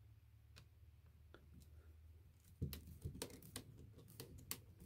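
Faint clicks and ticks of a hex driver turning a small screw through a plastic RC axle knuckle into a nylon lock nut, starting about halfway in, over a faint low hum.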